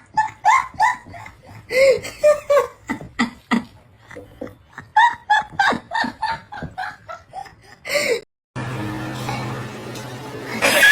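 A person laughing hard in quick, short bursts for about eight seconds. After a sudden break comes a steady low hum, and a loud wavering call starts at the very end.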